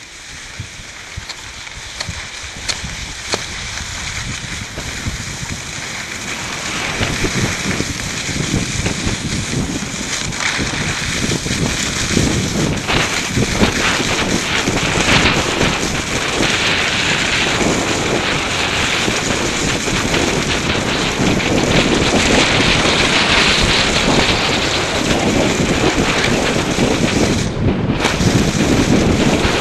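Wind buffeting a helmet-mounted microphone together with a snowboard scraping and carving over snow, growing louder over the first several seconds as the rider picks up speed, then holding steady.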